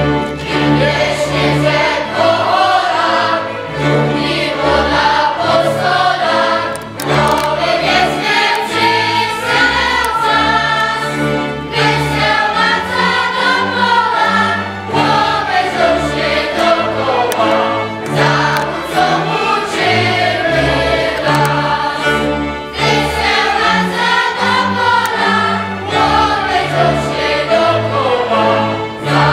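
Polish Highlander (Górale) folk tune performed by a large ensemble: many voices singing together over fiddles, with string basses pulsing underneath.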